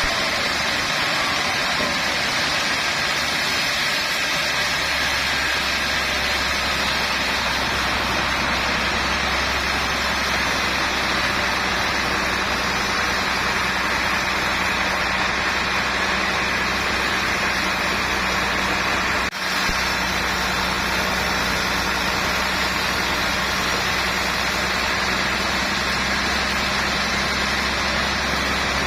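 Sawmill machinery running steadily, an even high whir with a deep engine-like hum that joins about four seconds in; the sound drops out for an instant about two-thirds of the way through.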